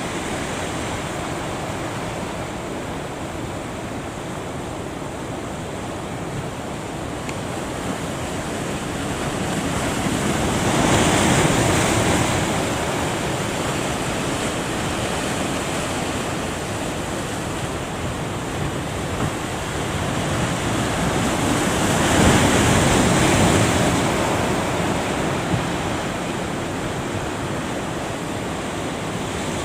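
Heavy ocean surf at a river mouth: a steady roar of breaking waves, with two big waves crashing louder, about ten seconds in and again a little past twenty seconds.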